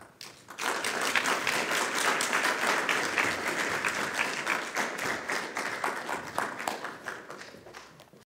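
Audience applauding, many hands clapping at once. It swells about half a second in, tails off over the last couple of seconds and then cuts off abruptly.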